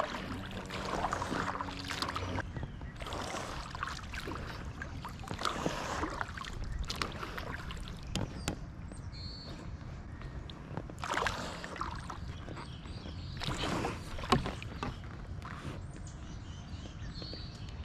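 Kayak paddle strokes dipping and splashing in the water at an uneven pace, beside an inflatable kayak, with one sharp knock about fourteen seconds in.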